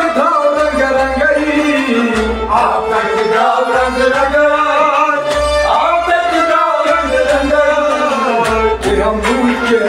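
Kashmiri folk ensemble playing live: harmonium and a bowed sarangi carry a gliding melody over hand drums.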